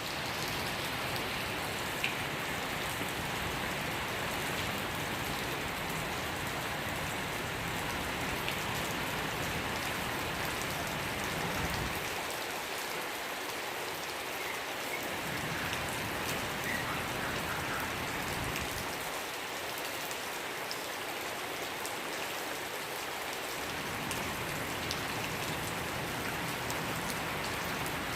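Steady rain falling and pattering on surfaces.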